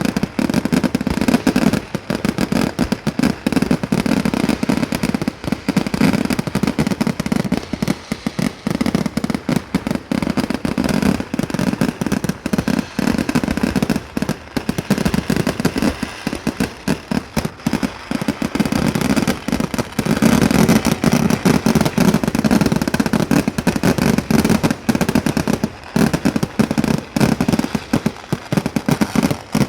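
Fireworks barrage: a dense, continuous rattle of firecrackers going off in rapid succession, many bangs a second. It swells louder in stretches, including about two-thirds of the way through.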